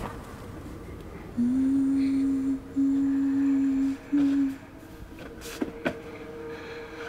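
A voice humming three long, steady notes at almost the same pitch, the first sliding up into place, over a faint steady drone. Two short sharp clicks follow a little later.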